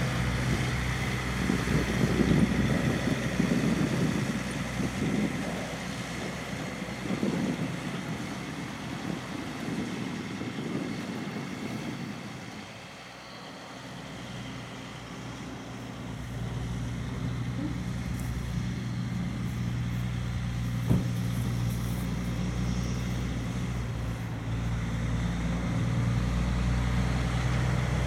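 Heavy diesel truck engine running with a low, steady hum. There is an extra rumble in the first several seconds, the sound dips quieter around the middle, and it grows louder again near the end.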